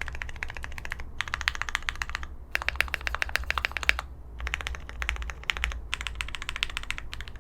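Fast typing on a custom mechanical keyboard: lubed SP-Star Sacramento linear switches on a polycarbonate plate with PBT keycaps, giving dense runs of sharp clacks in bursts of a second or so with short pauses between.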